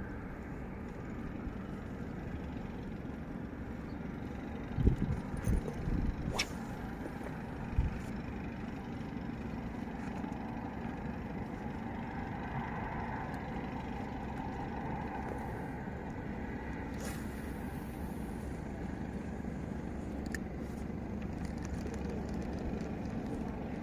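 Steady low outdoor rumble, with a few short knocks about five to eight seconds in.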